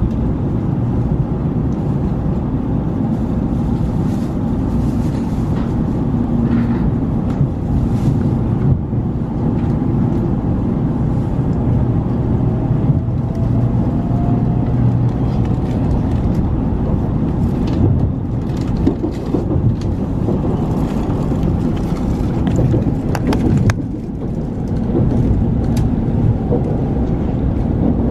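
Inside a moving Shinkansen bullet train: a steady low rumble of the running train, with scattered light clicks and knocks and a faint rising whine briefly in the middle.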